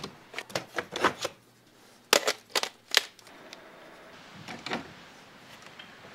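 Clicks and clatter of a DSLR camera being handled and fitted onto a metal mounting arm. A run of quick clicks comes in the first second or so, a louder cluster of knocks two to three seconds in, and a few softer clicks later.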